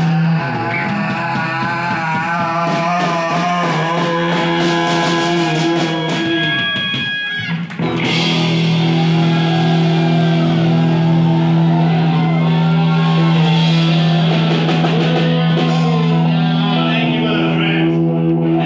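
Folk-rock band playing live on acoustic guitars, bass and drums, with singing. The band drops out briefly about halfway, then comes back in on a long held chord.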